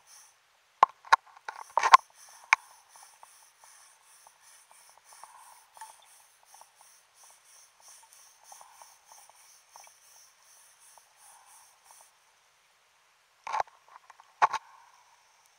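Underwater noise from a diver's gear at depth: a faint, fast high ticking, about four a second, that stops about twelve seconds in. There are a few short bursts of rushing noise near the start and two more about a second apart near the end.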